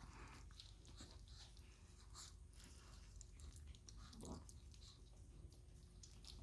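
Near silence: faint small clicks and rustles of four-week-old Chihuahua puppies shifting and nursing in their bed, with one brief low sound about four seconds in.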